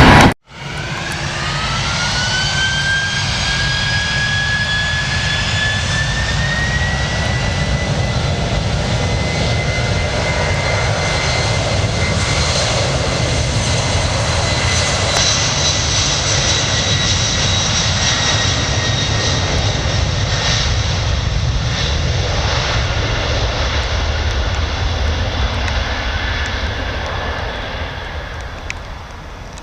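Boeing 767 twin turbofan engines spooling up: a whine rises in pitch over the first several seconds, then holds steady over a heavy jet roar, which fades near the end.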